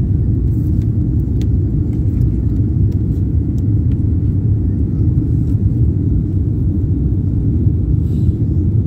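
Steady low rumble of a jet airliner's cabin in flight: engine and airflow noise heard through the fuselage, even and unchanging.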